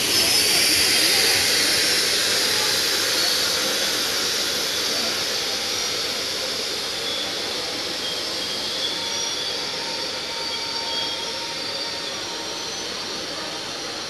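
Passenger coaches of an express train rolling away on the rails, a steady rushing hiss with faint wheel squeal that slowly fades as the train moves off.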